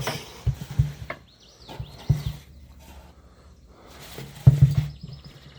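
Irregular low thumps and knocks from handling: old curtains being pulled out of a shortening can. The loudest cluster comes about four and a half seconds in.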